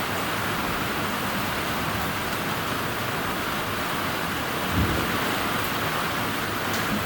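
Thunderstorm downpour: rain falling steadily as an even hiss, with one brief low thump a little past the middle.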